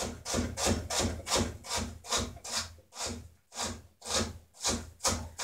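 Kitchen knife chopping a red onion on a wooden cutting board: an even run of cuts, about two to three a second.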